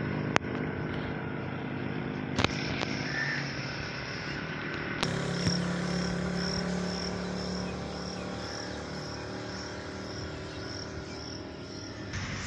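Roadside ambience with the low hum of distant traffic. From about five seconds in, an insect chirps in a steady high pulse about twice a second. A few sharp clicks stand out early on.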